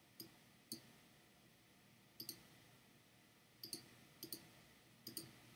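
Faint computer mouse clicks, some single and some in quick pairs, about every second or so.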